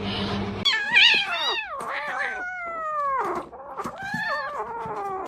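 A cat yowling: three long, drawn-out calls that slide down in pitch.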